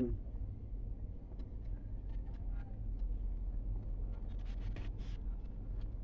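Faint scratching and light ticks of hands twisting and handling thin insulated wires together, over a steady low rumble.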